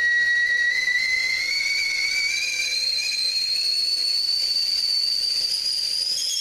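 A high-pitched whistle over a hiss, holding one tone whose pitch slowly rises.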